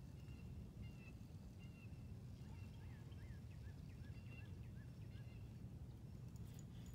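Faint outdoor ambience: wind rumbling low on the microphone while a bird calls in the distance, giving a quick run of short chirping notes in the middle along with a few thin whistled notes. A few faint clicks come near the end.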